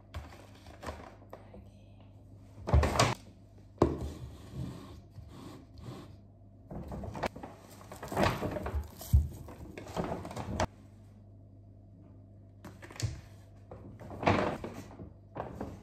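Household handling sounds: scattered knocks and thuds, like doors or drawers and objects being put down, with rustling between them over a faint steady low hum.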